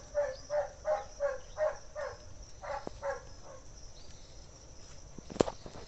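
An animal calling outdoors in a fast, regular series of short yelping notes, about three a second, for the first three seconds. A single sharp click comes about five and a half seconds in.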